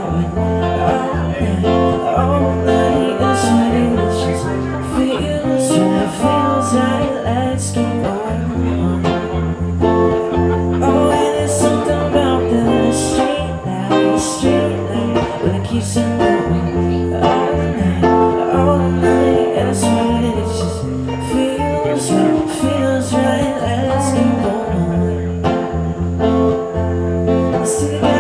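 Live band playing an instrumental stretch of a song: guitar over a steady bass line with regular drum hits.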